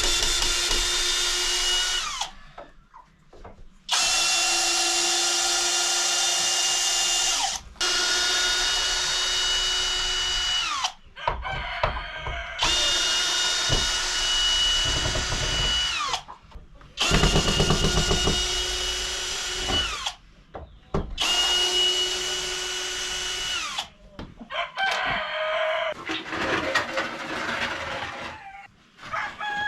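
Power drill run in about six bursts of two to four seconds, a steady whine that drops in pitch each time the trigger is released. Near the end, chickens cluck and a rooster crows.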